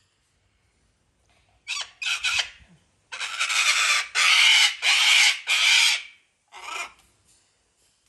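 Sulphur-crested cockatoo screeching: two short harsh calls, then a loud run of raspy screeches lasting about three seconds, and one more short call near the end.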